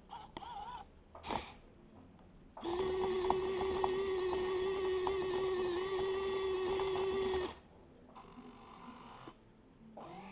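Electric gear motors of a 1:50 scale Kyosho Komatsu PC1250 RC excavator model running as it drives on its tracks: a steady whine that starts about two and a half seconds in, lasts about five seconds and stops, with short fainter whirs before it.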